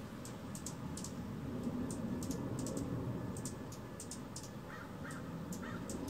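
Birds calling: many short, sharp high chips at irregular intervals over a steady low rumble, with a few lower, harsher calls about five seconds in.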